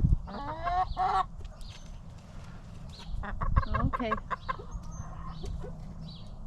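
Backyard hens clucking and calling, with a run of drawn-out calls about half a second in and another burst around three seconds in.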